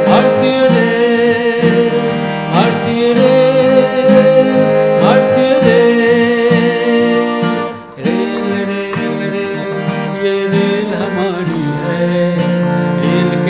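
Song music after a sung refrain: string instruments play a melody with sliding notes over steady held tones, with a brief drop in loudness about eight seconds in.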